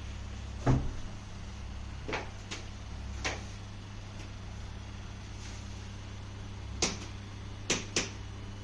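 A handful of short, sharp clicks and knocks during a chiropractic adjustment, the loudest about a second in and two close together near the end, over a steady low hum.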